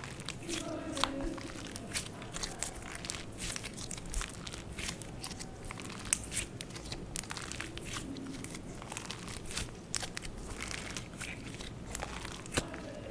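Slime being squished and kneaded by hand, making irregular sticky clicks and crackles.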